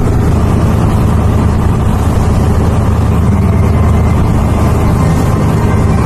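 Passenger boat's engine running steadily with a constant low hum, heard on deck with rushing noise from wind and sea.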